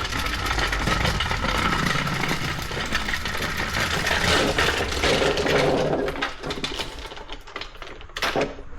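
Vintage push reel lawnmower being pushed, its spinning reel blades clicking rapidly as they cut grass. The rapid ticking thins out about six seconds in, leaving a few irregular clatters.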